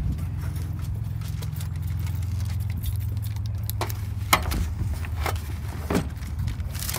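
A car battery being lowered and settled into its tray in the engine bay: a few sharp knocks and scrapes, the loudest about four seconds in, over a steady low hum.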